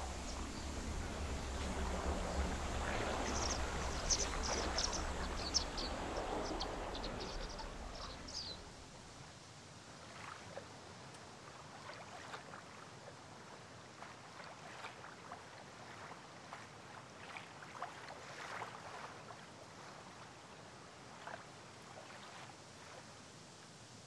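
A small boat moving through water, with a steady low rumble under a wash of water and a few short high bird chirps. After about nine seconds it drops to a quiet hiss of open water with faint scattered lapping ticks.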